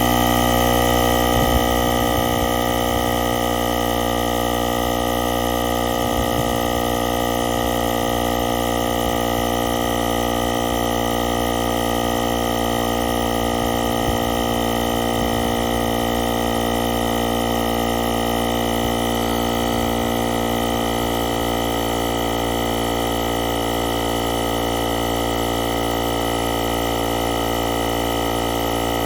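AUTDER 21V cordless tyre inflator's compressor running steadily while inflating a car tyre from 32.5 PSI toward a preset 38 PSI: a constant, even-pitched drone, slightly louder in the first couple of seconds before settling.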